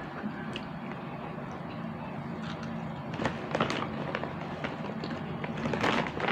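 Crunchy chicharon being chewed and a plastic snack bag crinkling as a hand reaches into it, in short crackles, loudest just before the end. A steady low hum runs underneath.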